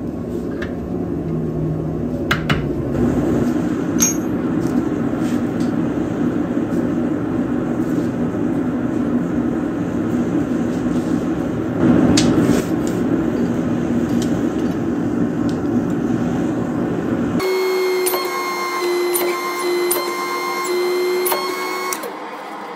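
Propane forge burner running with a steady roar, with a few light metallic clicks and taps. About three-quarters of the way through, the roar cuts off abruptly and is replaced by music of steady electronic tones.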